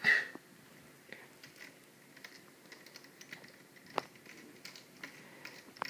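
Light, scattered clicks and ticks from hands working a small screwdriver and screws at a laptop's screen hinge and bezel. There is a sharper knock right at the start and another about four seconds in.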